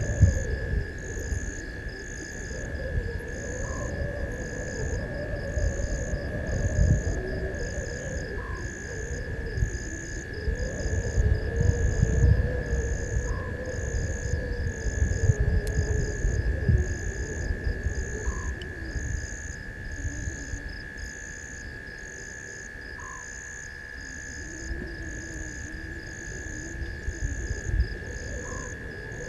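Night bush ambience: a steady high-pitched insect trill, and a higher insect chirp pulsing about once a second. A short call comes every few seconds, over uneven low rumbling noise.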